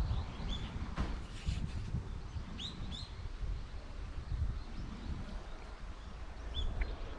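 Several short bird chirps, two of them close together about two and a half seconds in, over a steady low rumble, with a single click about a second in.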